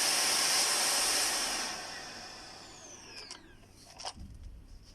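Bissell Featherweight stick vacuum running with a steady rushing noise, then switched off about a second and a half in: its motor winds down with a falling whine over the next two seconds. A few light clicks and a soft knock follow near the end.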